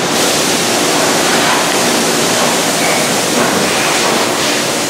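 Steady, even rushing hiss of machine-shop background noise, with no distinct knocks or tones standing out.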